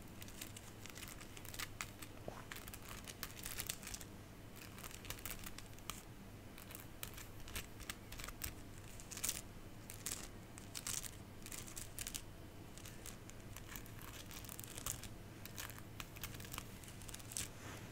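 Close-miked ASMR handling sounds: soft, irregular crinkling and crackling, with many small sharp crackles scattered throughout.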